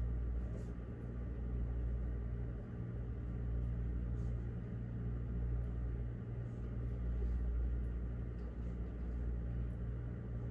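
Steady low electrical or machine hum made of several evenly spaced low pitches, with a few faint light ticks over it.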